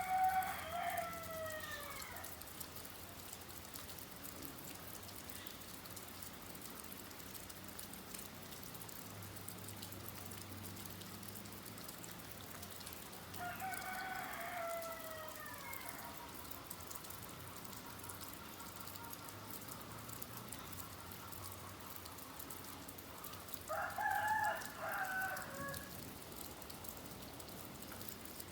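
Steady rain falling, with a rooster crowing three times, each crow about two seconds long and falling in pitch at the end.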